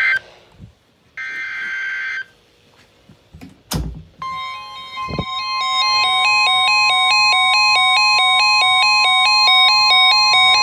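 Emergency Alert System SAME header data bursts, harsh digital screeches about a second long, the second one about a second in, followed by a few clicks. From about four seconds in, a steady 1050 Hz weather-radio warning alarm tone sounds, with an alternating beep pattern stepping up and down about four times a second laid over it.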